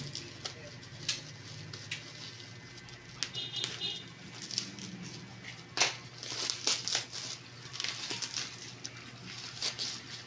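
Plastic bubble-wrap mailer crinkling and rustling as it is pulled open by hand, with scattered sharp crackles, the loudest about six seconds in.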